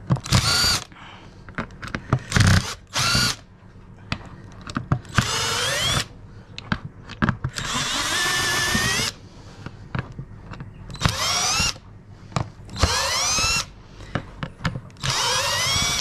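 Cordless drill with a Phillips bit backing screws out of a plastic washing-machine door ring. The drill runs in about eight short bursts, its motor whine rising in pitch at each start, with small clicks between the runs.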